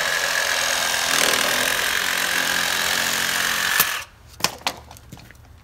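Handheld electric power saw cutting through plastic pipe, running steadily for about four seconds with a constant whine, then stopping abruptly. A few sharp knocks follow.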